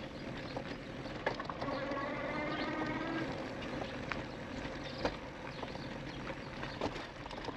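E-bike ridden over a dirt trail: a steady rush of tyre and riding noise, broken by sharp knocks and rattles from bumps, the loudest about a second and about five seconds in. A whine from the electric motor comes in for a second or two near the start.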